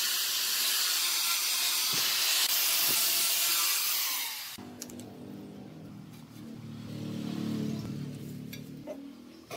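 Handheld power tool with a sanding drum sanding a wooden vase as it turns on a lathe: a loud, steady hiss. It cuts off abruptly about four and a half seconds in, leaving a quieter low hum.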